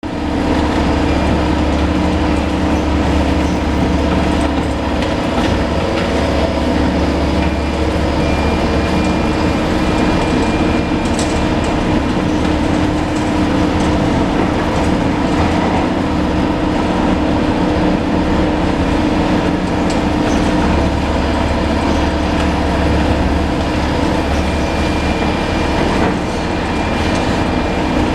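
Heavy construction machinery running: a loud, steady low engine drone, with a thin high squeal coming in at times.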